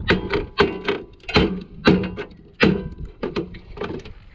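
Hammer striking metal scrap, about ten sharp blows in quick, uneven succession, some leaving a short metallic ring.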